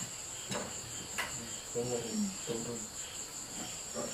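Insects chirring: a steady, high-pitched trill that runs throughout. Two light clicks come in the first second and a half.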